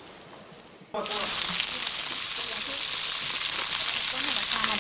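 Gochujang-marinated pork sizzling on a grill. The sizzle starts suddenly about a second in, after a quiet start, and then holds steady.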